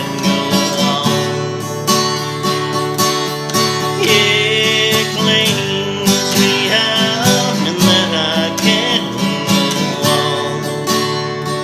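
Acoustic guitar strummed steadily in the instrumental close of a song, with a wavering melody line rising above it twice.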